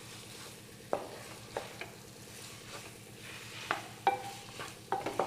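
Chicken pieces being stirred into fried onion-spice masala in a hot kadai: a low sizzle under a ladle scraping and knocking against the pan several times, a couple of the knocks ringing briefly.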